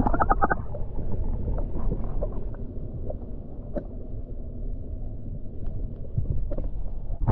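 Muffled low rumble of water heard through a submerged action camera, with a quick run of ticks at the start and a few scattered clicks after.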